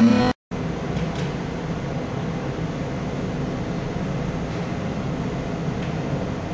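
Band music with violin and bass guitar cuts off abruptly at the very start. After a brief silence comes a steady, low rumbling noise.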